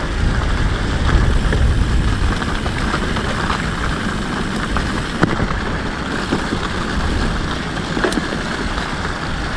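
Mountain bike tyres rolling over a trail covered in fallen leaves: a steady rustling noise over a low rumble, with a few short clicks.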